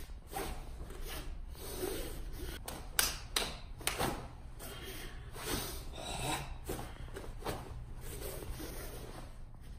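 Forceful kata breathing from the belly: long hissing exhales and sharp inhales through nose and mouth, with the heavy cotton uniform rustling and a few sharper snaps about three to four seconds in.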